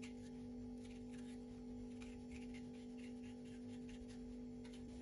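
Faint scraping strokes as the flesh is scooped out of a hollow courgette with a spoon, under a steady low hum.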